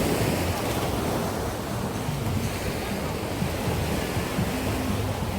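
Waves breaking and washing up on a sandy beach in a steady surf, with wind rumbling on the microphone.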